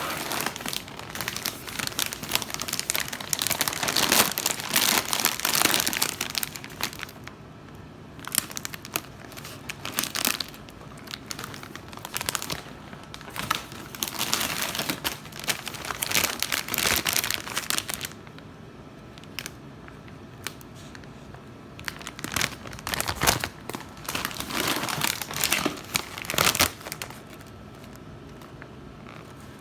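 Packaging crinkling and rustling as items are unpacked from a shipping box, in irregular bursts with a few quieter pauses.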